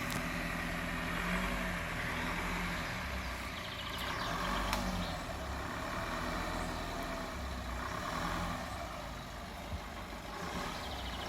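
A 4x4's engine running at low revs as the vehicle moves slowly forward. There is a single sharp click a little under five seconds in.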